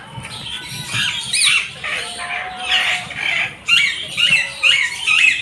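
Alexandrine parakeets squawking: a string of short, harsh calls, coming quicker, about two a second, in the last second and a half.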